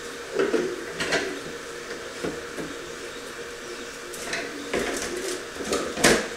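Handling knocks of plastic bottles and items being moved on a plywood workbench, with a louder single knock near the end. Under it, the steady hum of a 3D printer running in the background.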